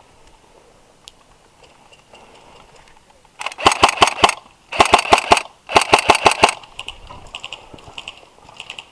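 Airsoft rifle fired close by in three quick bursts of five or six sharp cracking shots each, followed by fainter, scattered shots near the end.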